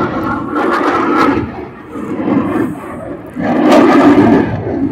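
Military jet's engine roar overhead, loud and swelling twice.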